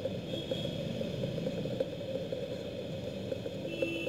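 Steady low background hum with faint light ticks scattered through it.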